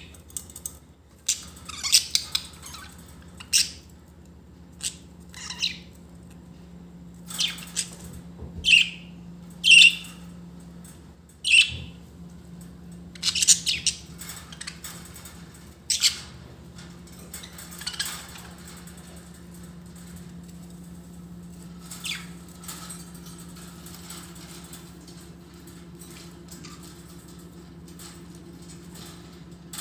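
Budgerigars chirping and squawking in short, separate calls, frequent for the first half and thinning out after about 18 seconds, over a steady low hum.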